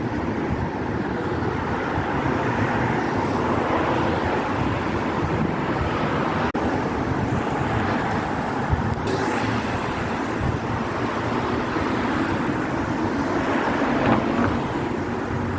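Steady road traffic: cars passing on a street, their engine and tyre noise swelling and easing, with a brief dropout about six and a half seconds in.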